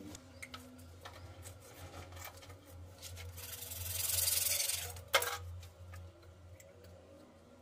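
Hacksaw blade cutting through a CPVC pipe by hand: a rasping scrape that swells for about two seconds, then stops with a sharp crack. Light ticks of handling around it.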